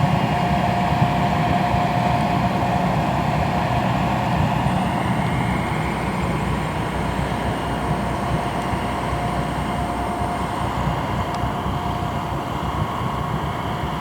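Diesel engine of a river towboat running steadily: a continuous drone with a faint steady whine, slowly growing quieter.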